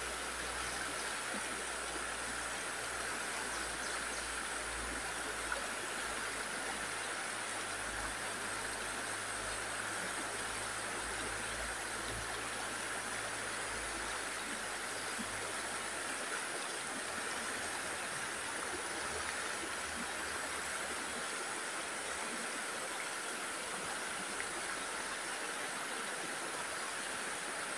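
A stream flowing with a steady rushing of water.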